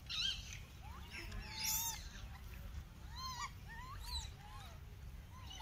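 Macaque monkeys calling: a string of short calls that rise and fall, several in turn, with two higher, shrill cries in the first two seconds.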